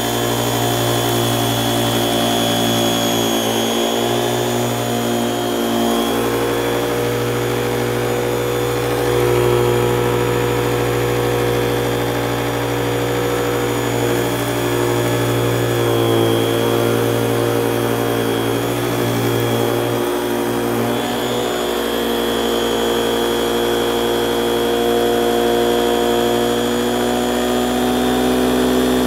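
Eureka Express canister vacuum running, its powerhead brushroll agitating carpet: a steady motor hum and whine whose pitch shifts slightly now and then as the nozzle moves.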